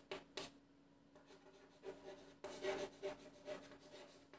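Faint scratching of handwriting: a few short strokes at the start, a pause, then a run of strokes in the second half as words of a definition are written out.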